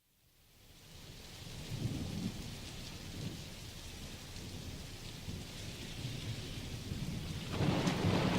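Steady rain falling with low rumbles of thunder. It fades in from silence over the first second or two, and the rain grows suddenly louder about seven and a half seconds in.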